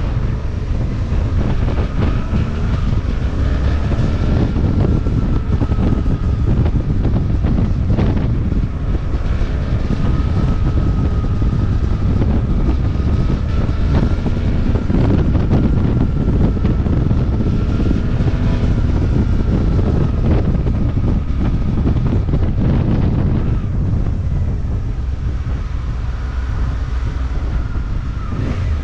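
Suzuki motorcycle being ridden at a steady pace: a loud, steady engine and road rumble with heavy wind buffeting on the microphone, and a faint whine that rises and falls slowly.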